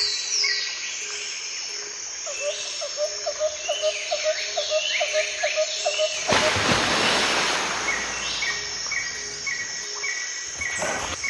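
Birds and insects calling, with evenly repeating chirps and pulses. About six seconds in, a rushing noise swells for a second or two.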